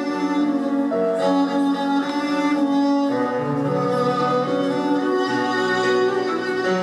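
Slow instrumental music led by bowed strings, held notes changing every second or so, accompanying a dance.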